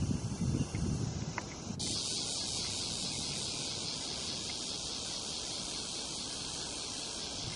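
Outdoor ambience: low, irregular rustling and rumbling for the first two seconds, then a steady high-pitched hiss that sets in abruptly and carries on.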